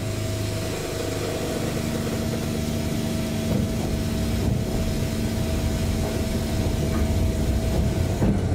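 Narrow-gauge electric train heard from the cab: a steady hum of motors and onboard equipment with a few held tones, getting slightly louder toward the end.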